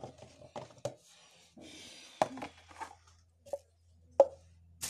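Scattered sharp knocks and clicks of a utensil and plastic bowls being handled while dry pancake ingredients are readied for mixing, with a short rustle about two seconds in; the loudest knock comes near the end.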